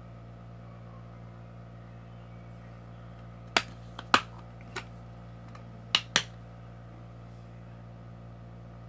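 Five short, sharp clicks from handling a moisturizer bottle while a drop of moisturizer is added to clear glue; the loudest come in two close pairs, over a steady low hum.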